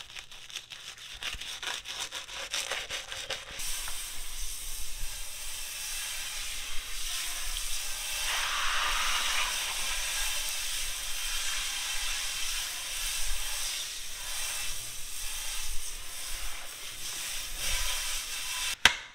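A small plastic scrub brush scraping in quick strokes around the faucet base of a porcelain sink. After about three and a half seconds a pull-out kitchen sprayer starts a steady hiss of water rinsing the sink bowls, and a sharp click comes near the end.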